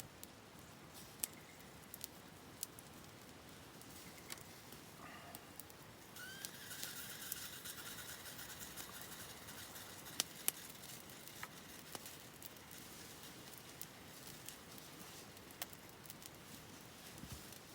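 Campfire crackling: scattered sharp pops and clicks from burning wood, with a louder hissing stretch from about six to nine seconds in.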